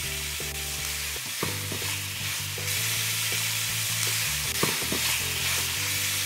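Chopped chicken breast and onions sizzling steadily as they fry in a frying pan, with a few sharp clicks of a utensil against the pan as they are stirred.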